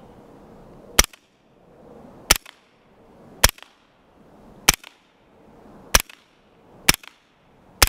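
Seven suppressed 9mm shots from a B&T GHM9 pistol, wearing a Griffin Armament Revolution 9 suppressor and firing 147-grain ball, in slow deliberate fire about a second or so apart. Each shot is followed by the faint smack of the bullet hitting a wooden post downrange.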